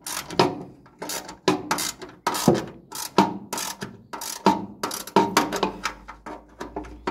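Ratchet wrench clicking in repeated short strokes, about two a second, as bolts are tightened on a combine harvester.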